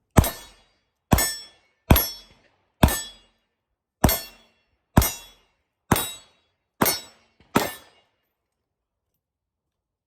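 Nine shots from a Ruger MAX-9 9mm pistol, fired at about one a second with a slightly uneven rhythm, each a sharp crack with a short ringing tail, stopping about eight seconds in.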